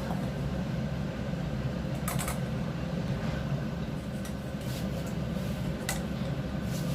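Steady low mechanical hum, with a few light clicks about two seconds in and again near the end.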